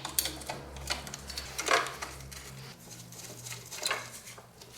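Hand tools working the front mounting bolts of a motorcycle's skid guard: irregular metal clicks and clinks as the bolts are loosened and taken out. A couple of louder clinks come about two seconds in and near the end.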